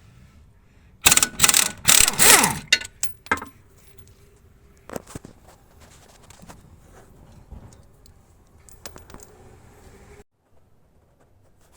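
Metal tools and car parts clanking and rattling, with a loud clattering burst lasting about two seconds, followed by scattered clicks and taps.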